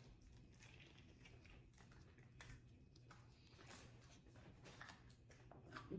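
Near silence, with faint scattered clicks of someone chewing a sub sandwich.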